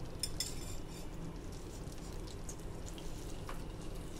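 Thick masala gravy sizzling softly in a steel kadhai, with a few light clicks and scrapes as paneer cubes are tipped in from a glass bowl and stirred with a wooden spatula.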